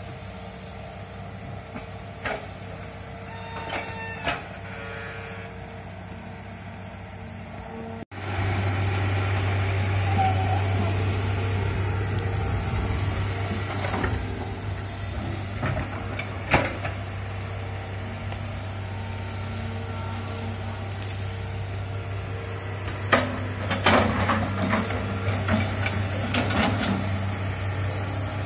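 Tracked hydraulic excavator's diesel engine running steadily while it digs a ditch, much louder from about eight seconds in, with scattered sharp knocks.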